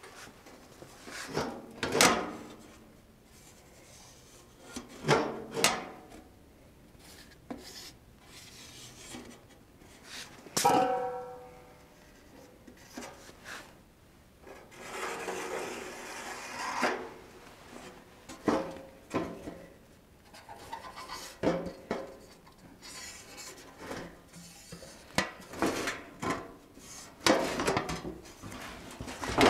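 A steel patch panel being handled and marked out against a rusty inner fender: scattered scrapes, rubs and light knocks of sheet metal, with a short metallic ring about ten seconds in.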